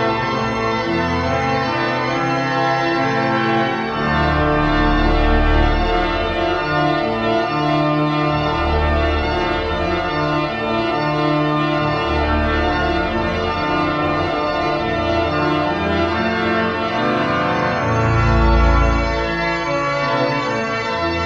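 1885 Schuelke mechanical-action (tracker) pipe organ playing a piece: sustained chords over a bass line whose notes change every second or two.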